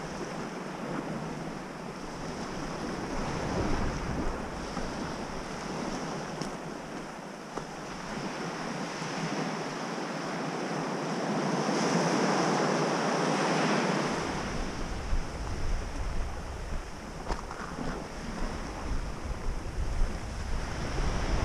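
Sea waves washing up a gravelly beach, swelling louder about twelve seconds in. From just after the middle on, wind buffets the microphone with a low rumble.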